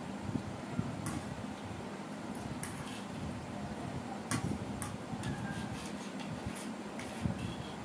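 Spoons clicking and clinking against plates now and then, at uneven intervals, over a steady low background noise.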